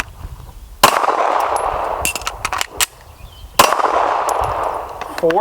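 Two handgun shots about two and three-quarter seconds apart, each followed by a short echo. Between them come several quick metallic clicks and knocks of a combat reload: magazine out, fresh magazine in, slide sent home.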